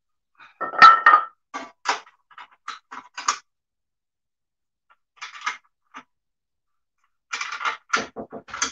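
Irregular knocks and clatter from handling the sprayer pump on its base and setting a wooden plank down. The loudest knock, with a brief ring, comes about a second in. A few more follow over the next two seconds, then a short cluster in the middle and another near the end.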